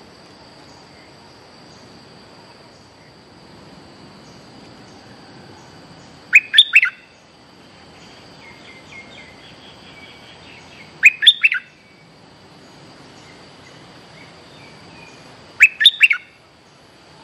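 A caged bulbul (merbah) gives its lure song: three loud, short bursts about four and a half seconds apart, each a quick run of three or four notes. A steady high insect drone runs underneath, with a few faint distant chirps between the bursts.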